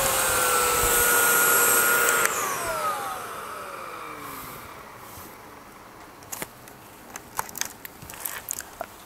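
Samsung Power Stick Pro cordless stick vacuum running with a steady whine. It is switched off about two seconds in, and its motor whine falls in pitch as it spins down and fades. Then come scattered plastic clicks and knocks as the dust bin is taken off the body.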